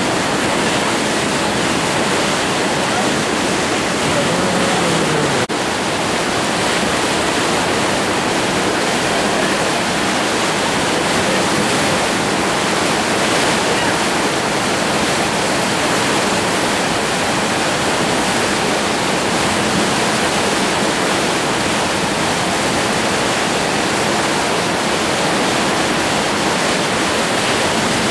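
Whitewater river rapids rushing, a steady loud wash of moving water, with a brief drop in level about five and a half seconds in.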